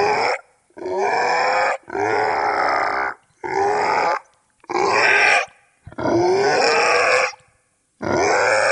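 Goblin creature voice: a string of guttural grunts and snarls, about seven separate calls, each around a second long with short pauses between, the pitch sliding within each call.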